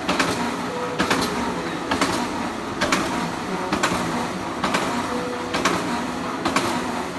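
Chicken cutting machine running: a steady motor hum with a sharp clack a little under once a second, a regular beat of cutting strokes.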